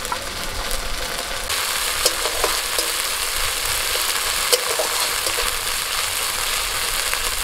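Chopped onions and ginger-garlic paste sizzling in hot oil in a metal kadai, with a metal spatula scraping and clinking against the pan as it is stirred. The sizzle gets louder about a second and a half in.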